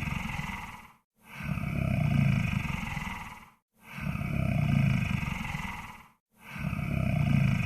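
Monster snore sound effect: a low, rattling snoring breath that swells up and fades away, repeating about every two and a half seconds with short silent gaps between breaths.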